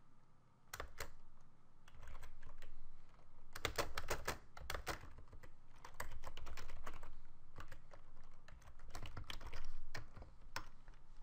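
Typing on a computer keyboard: quick runs of keystrokes in irregular bursts, with short pauses between them.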